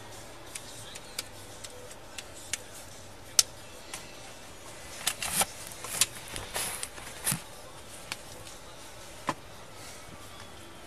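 Inside a patrol car, a steady low hum runs under scattered light clicks and taps from things being handled in the cab. The clicks cluster into a busier run about five to seven seconds in.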